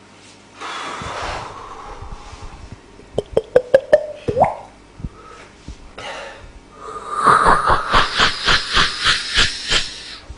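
Mouth-made sound effects: a breathy hiss, then a run of sharp tongue clicks with a short rising pitched sound. Near the end comes a fast rhythmic chugging of breath pulses, about five a second.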